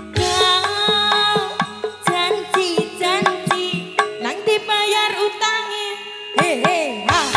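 Campursari band playing an instrumental passage: a melody with bending, wavering notes over quick hand-drum strokes, with the drum's pitch sliding up and down near the end.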